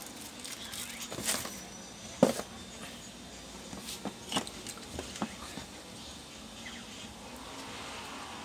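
Hands handling the parts of an opened induction cooker on a workbench: scattered light clicks and knocks of plastic parts and wires, the loudest a sharp knock about two seconds in, with rustling of a plastic bag about a second in.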